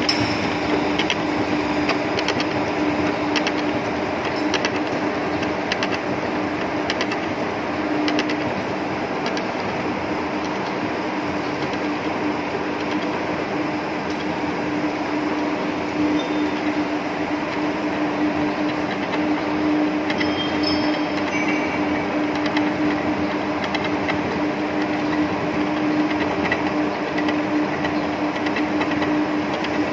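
Metal lathe running steadily while cutting a worm thread into a steel shaft. Its drive and change gears give a constant hum with a light clicking rattle.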